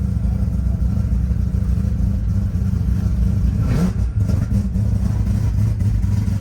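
A car engine running hard, loud and deep, with one rising rev about four seconds in.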